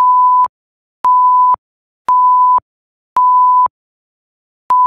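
Countdown beeps: five electronic beeps at one steady, medium-high pitch, each about half a second long, roughly one a second, the last after a slightly longer gap near the end.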